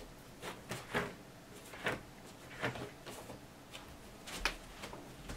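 German shepherd puppy pawing and nosing at bedding and a pillow: irregular rustles and scrapes of fabric, loudest about a second, two seconds and four and a half seconds in.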